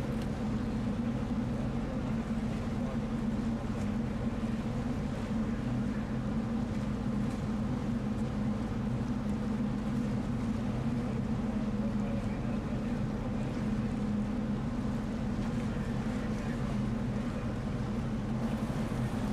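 Ship machinery running with a steady low drone: marine diesel engines working as a vessel manoeuvres alongside a quay, the sound holding even throughout.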